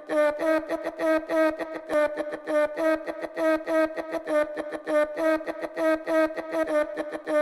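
Instrumental music: one pitched note repeated in a quick, even rhythm with short ticks between the notes, the intro to a hip hop track.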